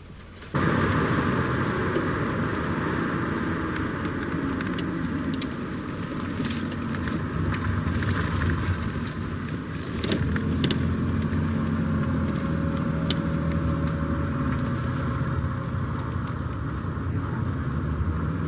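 Car driving: steady engine and road rumble that cuts in suddenly about half a second in, with a few light ticks over it.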